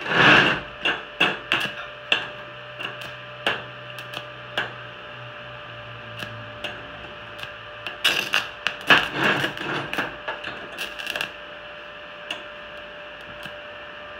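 Stick-welding arc from a 2.5 mm electrode crackling and popping in short irregular bursts as it strikes and then sticks to the steel tube. The welder is set at only 45 amps, too low to melt the rod, so the arc keeps dying and the rod freezes to the work.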